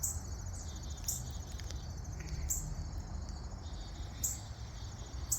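Insects, cricket-like, trilling steadily in a high, finely pulsed drone. Short sharp high chirps cut in about every second or two.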